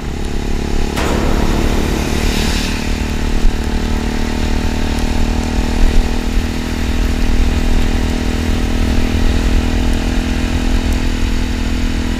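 Honda Monkey 125's single-cylinder four-stroke engine running steadily at cruising speed, heard from the rider's seat, with a brief rush of noise about a second in.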